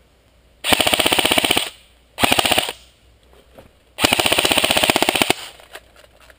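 Airsoft gun firing on full auto in three bursts of rapid, evenly spaced shots: a long burst, a short one, then another long one.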